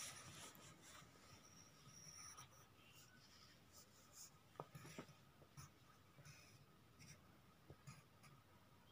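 Faint, irregular scratching of a pencil sketching on paper on a clipboard, with a few sharper strokes around the middle.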